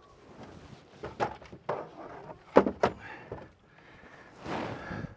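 Several separate knocks and thuds in a small enclosed space, about a second in and again around two to three seconds in, followed by a short rustle near the end.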